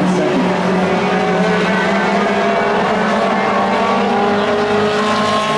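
Engines of a pack of Pro 4 race trucks running at speed around a short oval track, several engine notes blending into one steady sound whose pitches drift slightly as the trucks pass.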